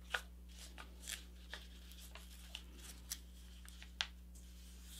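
A sheet of A4 paper being folded and creased by hand into a paper airplane wing: scattered crackles and rustles of paper as it is pressed flat, the sharpest right at the start and about four seconds in.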